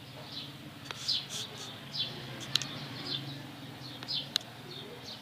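Sparrows chirping: short, high, falling chirps that repeat every half second or so, with a few sharp clicks between them.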